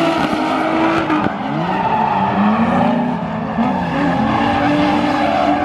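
Drift car engine revving up and down repeatedly, with tyres squealing as the car slides.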